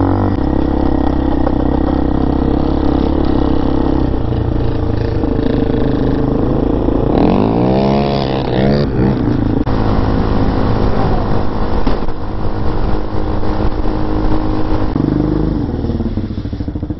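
RPS Hawk DLX 250's air-cooled single-cylinder four-stroke engine running under way, heard from the rider's position. The engine note holds steady, with a quick swoop up and back down in pitch about halfway through.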